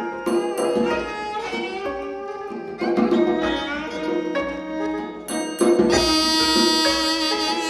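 Instrumental music: a melody of pitched notes over a repeating low beat, growing fuller and brighter about six seconds in.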